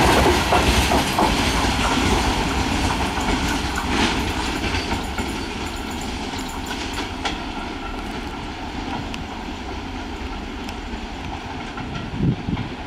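A long freight train of covered BCNA wagons rolls past at speed, its wheels rumbling and clattering on the rails. The sound fades steadily as the brake van goes by and the train draws away.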